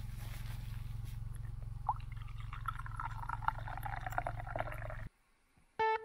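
Coffee poured from a flask into a thermos cup: a gurgling pour starting about two seconds in that rises in pitch as the cup fills, over a steady low hum. It cuts off a little after five seconds.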